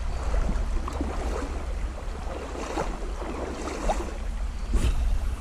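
Creek water running and splashing, with a steady low rumble of wind on the microphone.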